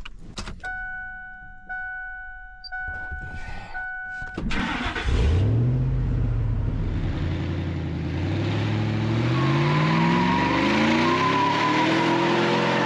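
A steady two-tone chime, then the Ford Lightning's supercharged 5.4-liter V8 cranks and catches about four seconds in, flaring up as it starts. It then revs steadily higher as the rear tires spin in a burnout, with a high whine over it near the end.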